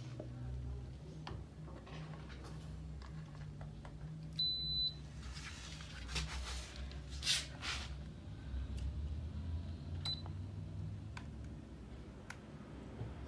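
Electronic beep from a space heater's control panel: one held for about half a second some four seconds in, and a short faint one near ten seconds, over a low steady hum with some rustling in between.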